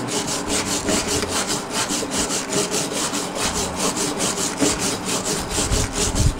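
Hand wire brush with steel bristles scrubbed rapidly back and forth over a freshly welded steel plate, cleaning off the weld. The strokes are scratchy and even, about five a second.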